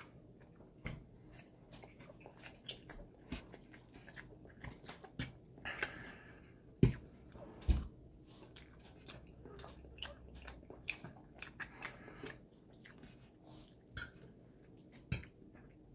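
A person chewing breakfast food close to the microphone: many small mouth clicks and smacks. A couple of sharper knocks stand out about seven and eight seconds in.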